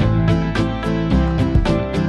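Background music: an instrumental track with plucked-string or keyboard notes and a steady pulse.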